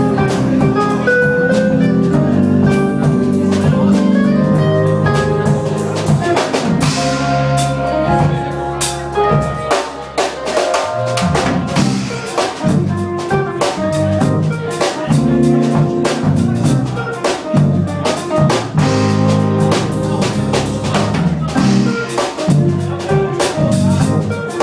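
Band music with a drum kit keeping a steady beat under layered instrumental parts.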